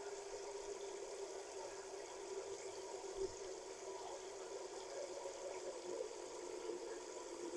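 Water running steadily from a kitchen tap into a cooking pot, filling it.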